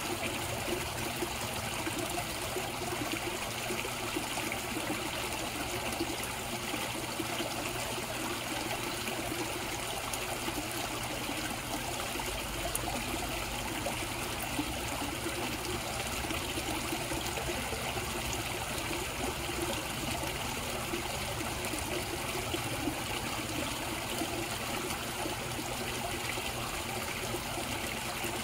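Water trickling and splashing steadily into a koi pond.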